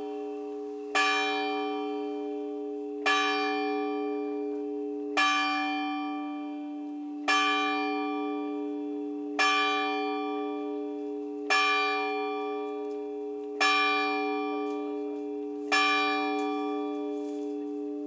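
A single church bell tolling at an even pace, one stroke about every two seconds, eight strokes in all, each ringing on long into the next. After the last stroke, a little under 16 seconds in, the ring dies away.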